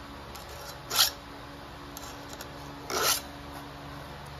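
Two strokes of a round chainsaw file scraping across a chain cutter, a short one about a second in and a longer one about three seconds in: hand-sharpening the cutters of a chainsaw chain.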